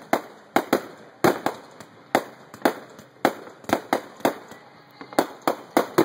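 Fireworks going off in quick succession: about fifteen sharp bangs, two or three a second at an uneven pace, stopping near the end.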